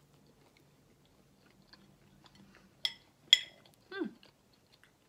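Quiet eating with a metal spoon: two sharp spoon clicks about half a second apart around three seconds in, then a short sound that falls steeply in pitch. A faint low hum runs underneath.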